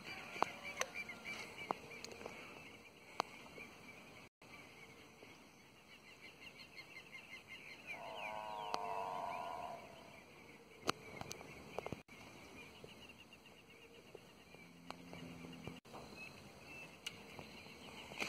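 Faint birds chirping, with one longer wavering animal call about eight seconds in and a few scattered clicks.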